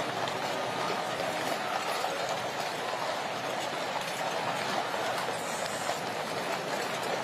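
Horse-drawn Gold State Coach rolling slowly: a steady rumble and clatter of its wheels on the road, mixed with the hoofbeats of the walking horses.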